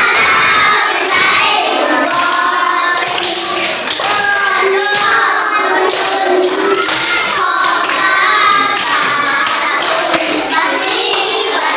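A group of young children singing a song together in a classroom, clapping their hands along.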